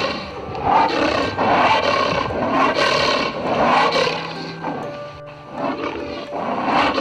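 Harsh, raspy roaring calls from a large animal, repeated about once a second, with a lull about five seconds in before they resume near the end; faint music underneath.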